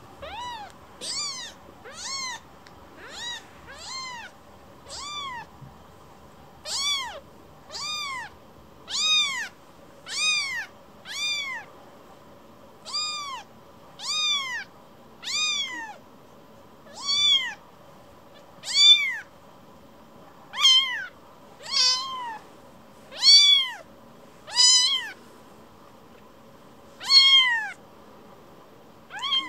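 Very young kitten mewing over and over: about twenty short, high-pitched mews, roughly one a second, each rising and then falling in pitch.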